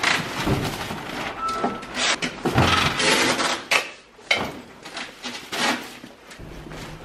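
Rustling and crinkling of plastic-wrapped mail packages and a large woven plastic shopping bag as parcels are tipped and dropped into a post office bin, with short knocks and thuds. There is a brief lull about four seconds in, then more rustling.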